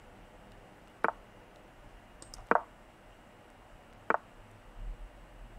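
Three sharp clicks about a second and a half apart as moves are made in an online blitz chess game.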